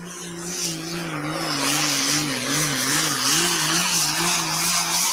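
Pulling tractor's engine running at full throttle during a pull, loud, with its pitch wavering up and down about twice a second and a heavy hiss over it.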